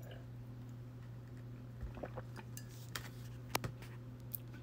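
Tin snips being handled: a few faint metallic clicks and clinks in the second half, one sharper click about three and a half seconds in, over a low steady hum.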